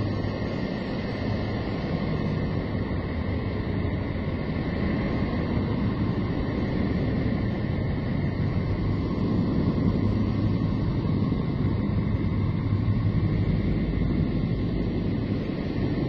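Low, steady drone with a hiss above it and a few faint held tones, swelling gently in loudness: Voyager 2 radio and plasma-wave emissions from Neptune converted into audible sound.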